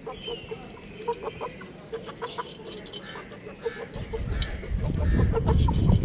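Chickens clucking softly in short, repeated notes while they peck in a pot of soil, with a few sharp clicks. A low rumbling noise builds from about four seconds in and becomes the loudest sound.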